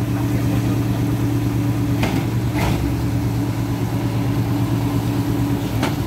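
Concrete pump truck's diesel engine running steadily at an even speed, with a few short sharp sounds: two a little after two seconds in and one near the end.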